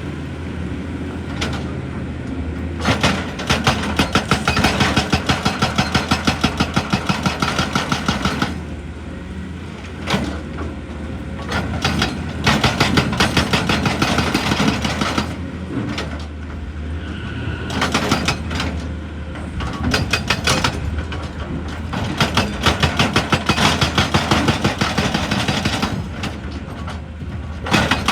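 Excavator-mounted hydraulic rock breaker hammering rock in several bursts of rapid, evenly spaced blows, several a second. The excavator's diesel engine runs steadily underneath and is heard alone between the bursts.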